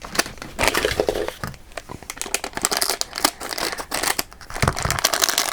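Blind-bag packaging crinkling and tearing as it is handled and opened, with many small sharp crackles.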